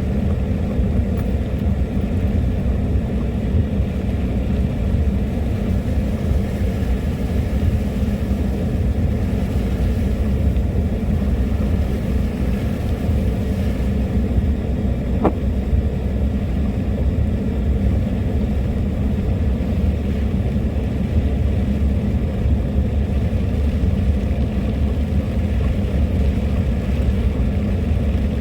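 A car driving steadily: a low, even rumble of engine and road noise, with a single faint click about halfway through.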